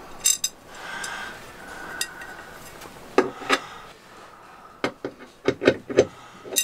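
Light clicks and knocks of a decorative metal porthole trim ring being handled and pressed into place over a porthole in a wooden bulkhead. A couple of clicks come near the start and two more a little after three seconds in, then a quicker run of them in the last two seconds.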